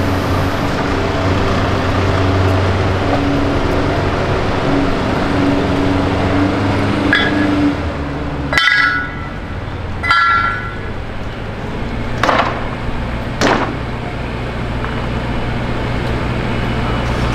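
Heavy-haul truck's diesel engine running steadily as it pulls a loaded lowboy trailer at crawling speed. Partway through come two short high-pitched squeals, then two sharp knocks.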